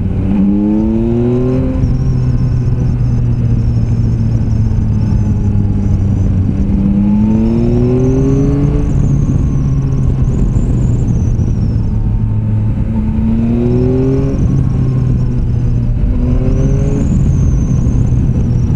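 Yamaha Tracer 9's 890 cc inline-three engine accelerating out of bends: its pitch rises four times, near the start, about halfway, and twice near the end, and holds steady in between. Wind rushes over the microphone.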